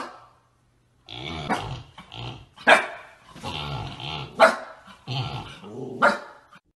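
Husky vocalizing in a run of calls starting about a second in, with four sharp, loud barks among them.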